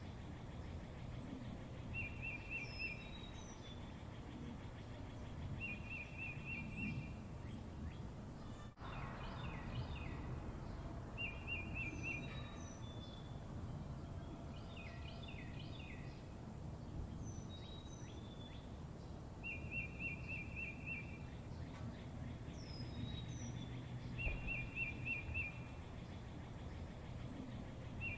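Songbirds singing over a steady low background rumble: one bird repeats a short, rapid, high trill every few seconds while others add brief scattered chirps.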